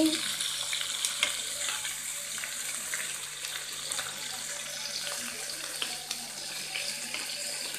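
Pieces of spiced meat frying in oil in a pan: a steady sizzle, with short clicks of a spatula stirring against the pan.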